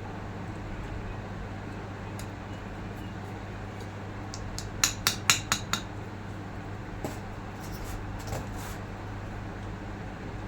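Metal parts of a forklift steering hydraulic cylinder clinking and tapping together as they are fitted. About halfway through comes a quick run of five sharp clinks, then a few fainter ones, over a steady low hum.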